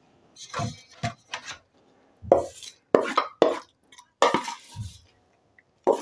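Metal kitchenware clinking and scraping: a small metal bowl knocking and scraping against a metal cooking pot as onions are tipped out of it onto mashed potatoes. The knocks are short and irregular, about a dozen in the first five seconds.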